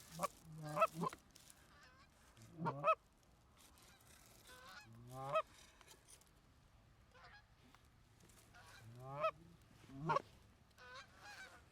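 Canada goose honks: about a dozen separate honks, singly and in pairs, each breaking from a low note up to a higher one, with gaps of a second or more between them.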